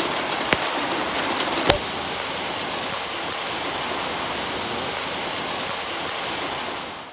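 Heavy rain falling steadily, a dense hiss of rain, with a few sharp taps in the first two seconds. The sound fades out at the very end.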